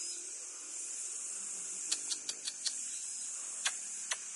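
Steady high-pitched hiss with sharp clicks: a quick run of five about two seconds in, then two single clicks near the end.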